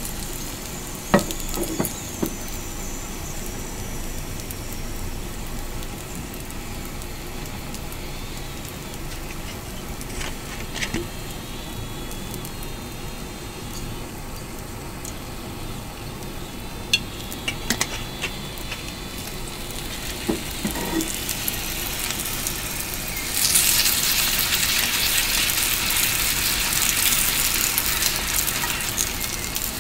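Mochi rice cakes sizzling as they fry in a nonstick pan on a gas stove, with scattered light knocks of the pan. About three-quarters of the way through the sizzle turns suddenly louder and hissier and stays up.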